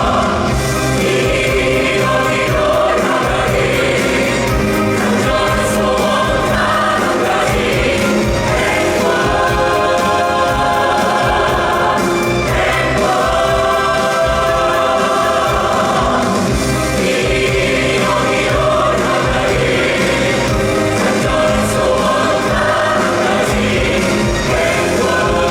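Musical-theatre ensemble singing together as a choir over orchestral accompaniment, loud and continuous.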